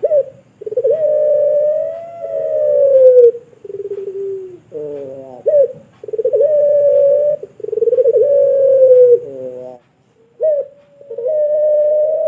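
Puter pelung dove (domestic ringneck dove) cooing loudly in a run of long, drawn-out coos, each held for one to two and a half seconds on a nearly level pitch, with short sliding notes and brief pauses between them.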